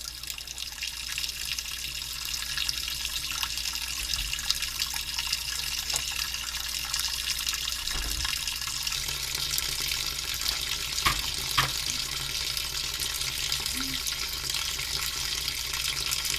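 Water running steadily, as from a tap, with a couple of sharp knocks about eleven seconds in.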